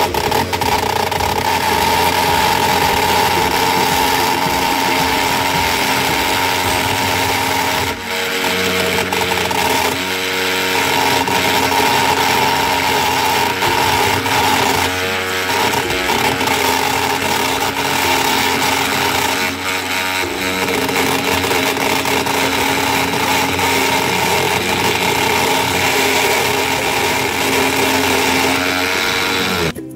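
Small benchtop mini wood lathe's motor running with a steady whine as a wooden dowel spins in its chuck and is worked by hand, the pitch dipping briefly several times as the piece is loaded. The motor cuts off suddenly just before the end.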